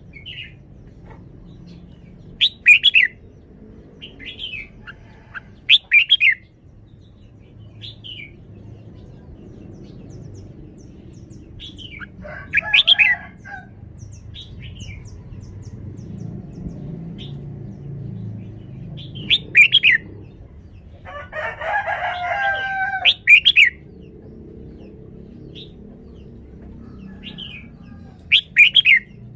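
Caged red-whiskered bulbul singing short, loud, chirpy phrases every few seconds, over a steady low background rumble.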